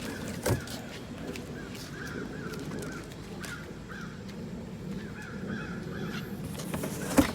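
Birds calling in the background, a series of short repeated calls, with a knock about half a second in and a sharp knock near the end.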